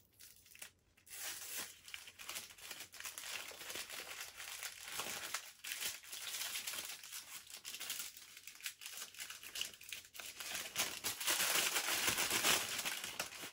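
Crinkly wrapping being crumpled and peeled off a small item by hand, a continuous crackling rustle with small tearing sounds, louder near the end.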